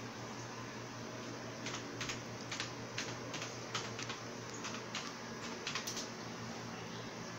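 Typing on a computer keyboard: a dozen or so quick, irregular key clicks starting about two seconds in, over a steady low hum.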